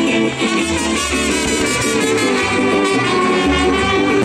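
Live mariachi band playing an instrumental passage through a stage PA: trumpets carry the melody over strummed guitars and low, moving bass notes.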